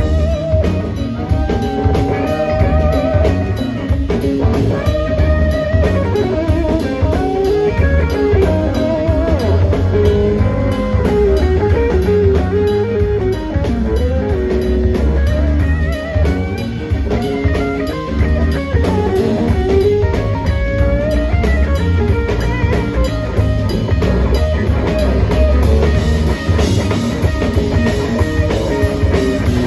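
Live blues-rock band: a semi-hollow-body electric guitar plays a lead solo of single-note lines with string bends and vibrato, over drums and bass.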